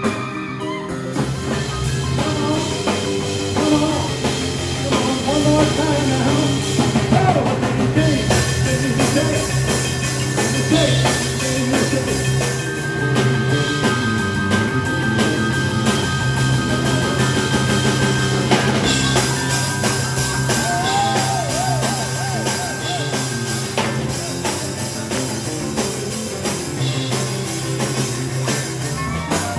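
Live band playing upbeat rock-style music: electric keyboard, electric bass and a drum kit.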